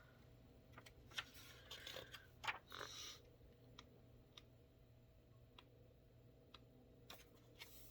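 Near silence with faint room tone: a few soft rustles early on, then small faint clicks at a fairly even pace of about one every half second.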